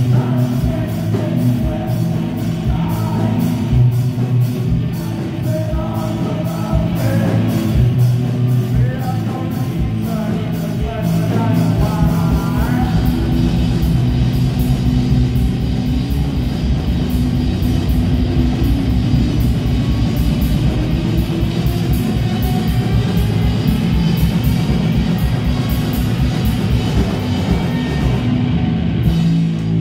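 Live rock band playing: electric guitars, bass and drums, with a singer's voice in the first half. About halfway through, the drums shift to a denser, driving beat.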